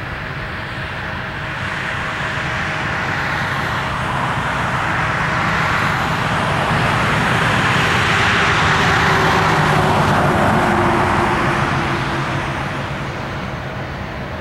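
A road vehicle passing close by: its rushing noise swells to a peak about two-thirds of the way through and then fades, with a low tone that drops in pitch as it goes by.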